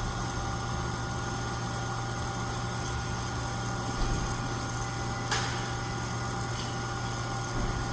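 Steady mechanical hum with a low drone and a few thin steady tones above it, broken by a couple of faint clicks near the middle.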